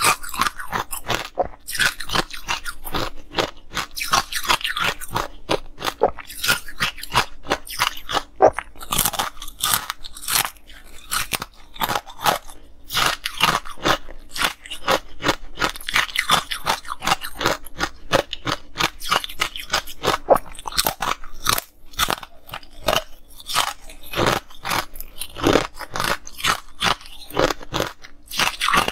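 Close-miked crunching and chewing of a stick of ice coated in green powder: a rapid, uneven run of sharp, crisp crunches with a few short pauses.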